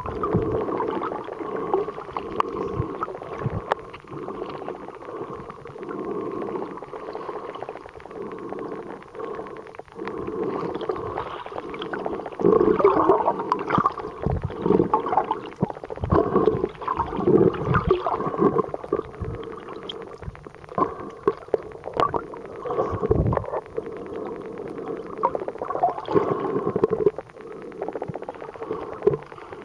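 Underwater sound picked up by a camera held below the surface: gurgling water movement with irregular surges and bursts, over a steady two-tone hum.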